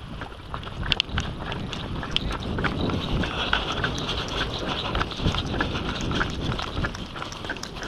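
Running footsteps on dirt and grass, with uneven thuds and many small clicks and rattles of the runner's gear.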